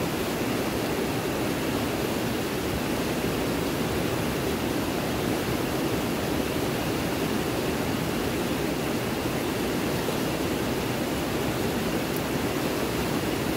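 Fast-flowing mountain river rushing over rocks, a steady even roar of water.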